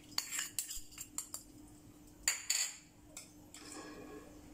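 A metal spoon clinking and tapping against a small bowl and the rim of a stainless-steel mixing bowl, a handful of light, irregular clinks, as baking powder is spooned in.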